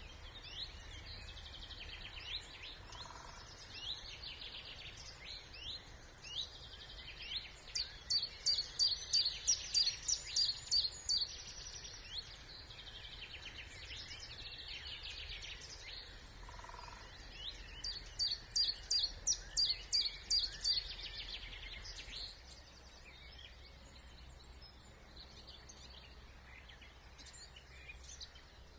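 Spring chorus of several songbirds in a wetland reserve. A nearby bird sings two bouts of loud, evenly repeated sharp notes, about a third of the way in and again past the halfway mark. A faint low rumble runs underneath.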